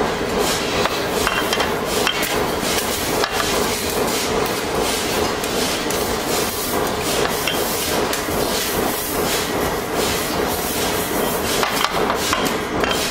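Continuous workshop machinery noise with a steady hum, broken by frequent sharp metallic knocks and clinks as steel band saw blades are handled and clamped in a blade butt welder.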